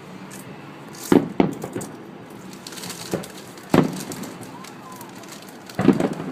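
Fireworks bursting at a distance: sharp bangs at irregular intervals, with a quick cluster of bangs near the end.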